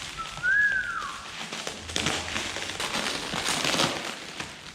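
A utility knife slicing through packing tape on a cardboard box, with a short squeal rising and falling near the start, then irregular crackling and scraping of tape and cardboard as the box is cut and pulled open.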